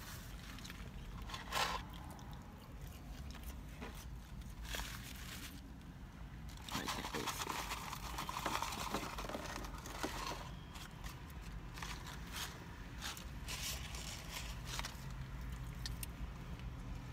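Paper crinkling and rustling as a paperboard fry carton and paper napkin are handled, densest a few seconds in, mixed with chewing and small mouth clicks, over a low steady hum.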